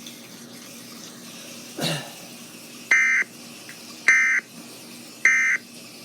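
Emergency Alert System end-of-message tones: three short, identical data bursts about a second apart, starting about three seconds in. A short thump comes about two seconds in, before them.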